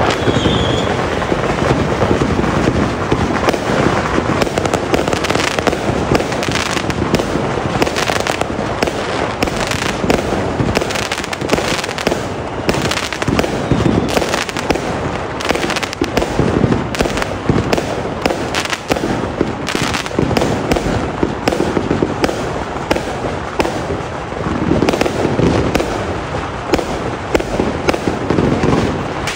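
A dense barrage of aerial fireworks going off all around: continuous overlapping bangs and crackling pops with no let-up.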